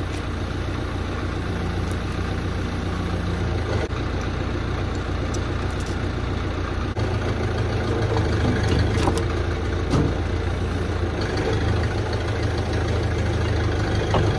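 Heavy engine of log-handling machinery running steadily, a little louder from about seven seconds in, with a few light knocks around nine to ten seconds.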